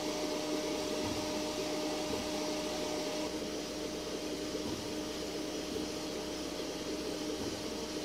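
FLSun S1 Pro delta 3D printer printing matte PLA at about 500 mm/s: a steady whirring hiss of fans and motors with a constant two-note hum.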